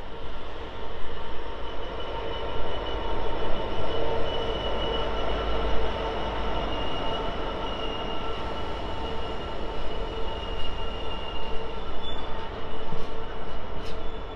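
Freightliner freight train rolling slowly past as it slows to a stop: a low rumble with steady high squealing tones held over it.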